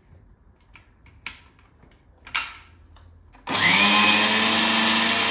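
Kitchen mixer grinder grinding coconut pieces and cardamom with a little water in its steel jar. After a couple of light knocks, the motor starts suddenly about three and a half seconds in, with a whine rising as it gets up to speed, then runs loud and steady.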